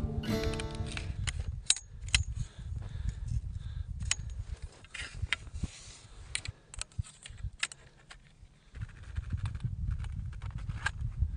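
Acoustic guitar music fades out about a second in. Then come scattered light clicks and knocks of tent poles being handled and fitted into an A-frame, over a low rumble of wind on the microphone.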